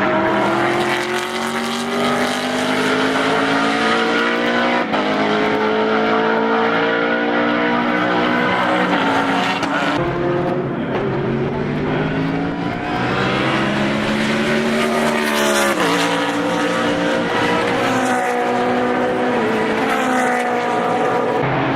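BMW Z4 GT3 race car's V8 engine at high revs, climbing in pitch through upshifts as it accelerates. About two-thirds of the way in the note sweeps sharply down, then climbs again.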